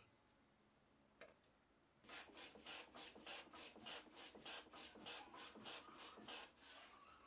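Wood being abraded by hand in quick, even back-and-forth strokes, about four a second, the rubbing of sanding or rasping. It starts about two seconds in, after a single faint tick, and fades out near the end.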